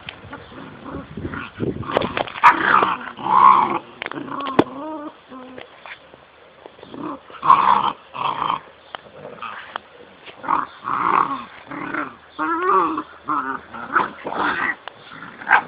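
Puppies play-fighting, growling with higher yelps in short, irregular bursts.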